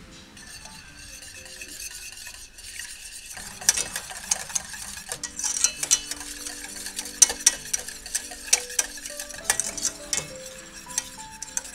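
Wire whisk stirring a thick sauce in a stainless steel saucepan, its wires scraping and clicking against the metal. The clicks turn louder and quicker about three and a half seconds in.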